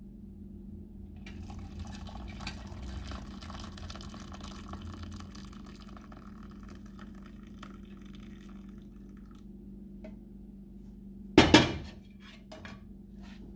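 Hot coffee poured from an enamel pitcher into a ceramic mug, a steady splashing pour lasting about eight seconds. A second or two after the pour stops comes one loud knock as the pitcher is set back down on the stove.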